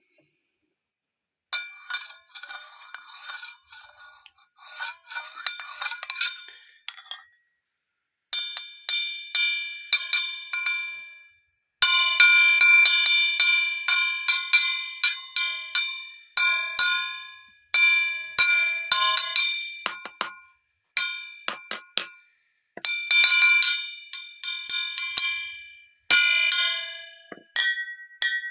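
Glass bottles being struck in quick runs of taps, each tap ringing with a clear bell-like note. Several different pitches sound, in bursts with short pauses between them.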